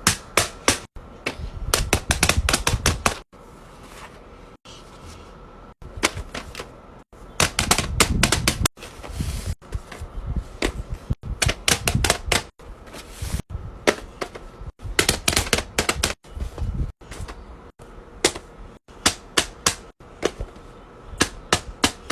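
Fidget toys being pressed and popped: fast clusters of sharp clicks and pops, like typing, that stop and start abruptly many times.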